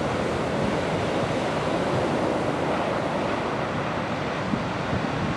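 Heavy Pacific Ocean surf breaking on a beach, a steady rushing wash of white water with wind gusting on the microphone.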